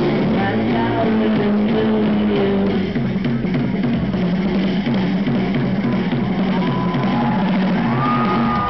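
Live rock band playing loudly through a festival PA, heard from the crowd: electric guitar, bass and a drum kit running steadily.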